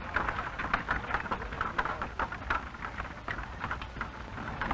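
Horse-drawn covered wagon and its harness in motion: an irregular patter of small clinks and rattles.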